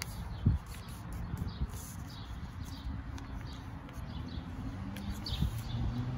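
Sheet of paper being folded and pressed flat by hand on a tabletop, with a sharp thump about half a second in. Small birds chirp faintly in the background.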